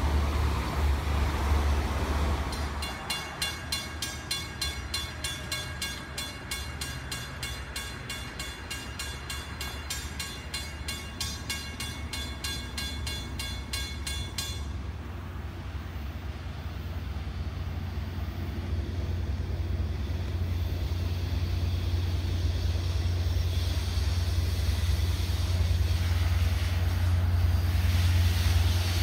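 Grade-crossing warning bell ringing in quick, even strokes, stopping abruptly about halfway through. Under it and after it, a low rumble slowly grows louder as a Long Island Rail Road diesel push-pull train approaches.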